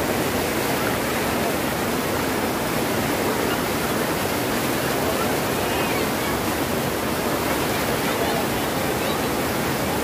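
Overflow water from a brimming lake rushing steadily over a low stepped weir and across a flooded road, an even, unbroken wash of falling, churning water.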